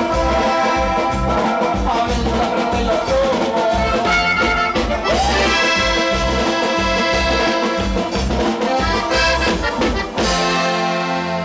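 Live norteño band music led by a diatonic button accordion, played over bass and a steady drum beat. About ten seconds in the beat stops and the accordion and bass hold long notes.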